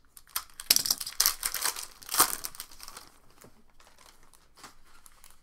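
Foil wrapper of a trading-card pack crinkling and crackling as it is peeled open by hand, dying down to faint rustles after about three seconds.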